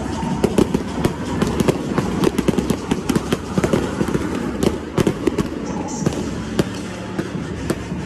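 Stadium fireworks display bursting overhead: a dense, rapid crackle of many sharp pops and bangs, thinning out a little near the end.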